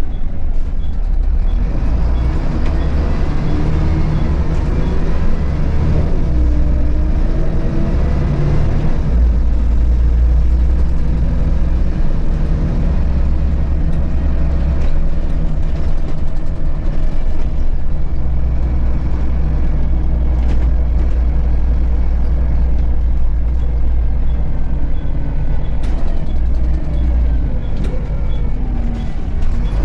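Onboard a Volvo B7RLE bus: its rear-mounted six-cylinder diesel engine and driveline running under way, rising in pitch for the first several seconds, then settling into a steady low rumble, with a few short rattles from the body.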